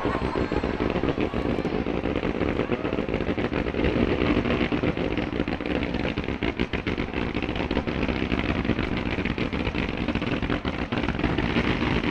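Fireworks crackling densely and continuously, a rapid unbroken popping over a steady rumble.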